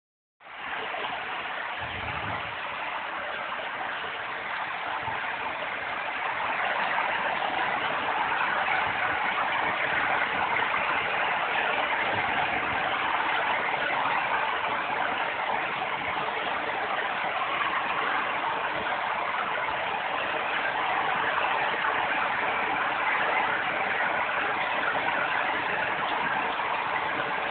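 Steady rainfall, an even hiss that grows a little louder about six seconds in.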